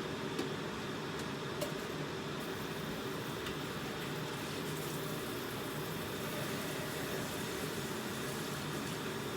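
Chicken and rice frying in oil in a cooking pot, a steady sizzling hiss with a couple of small clicks near the start.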